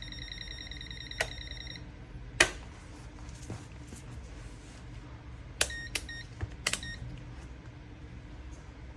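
Multimeter buzzer giving a steady high beep for about two seconds, the meter's live-wire indication in its neutral/live test mode. Then come a few clicks, and a few short beeps with clicks around six seconds in.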